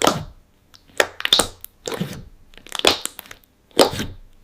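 Slime being squeezed and pressed by hand: a series of about five squishes, roughly a second apart.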